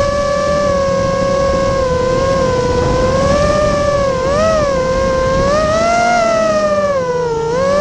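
Vortex 250 Pro FPV quadcopter's motors whining in flight, the pitch wavering up and down with the throttle and dipping briefly near the end.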